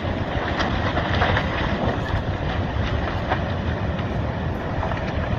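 Large landslide sliding into the sea: a steady rumble with scattered cracks and clatter.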